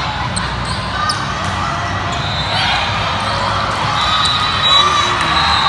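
Busy indoor volleyball gym din: volleyballs being struck and bouncing on the hardwood in quick, irregular knocks, over a constant crowd chatter, with high steady squeals now and then.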